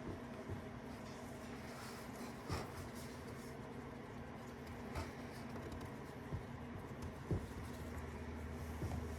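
A few faint, scattered taps and clicks, like light handling of tools and engine parts, over a steady low hum.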